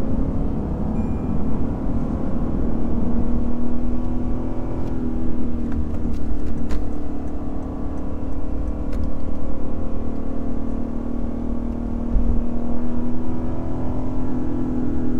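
Lexus IS500 F Sport Performance's naturally aspirated 5.0-litre V8 running at fairly steady revs while driving, swelling louder a few times, over low road and tyre rumble. A brief sharp click near the middle.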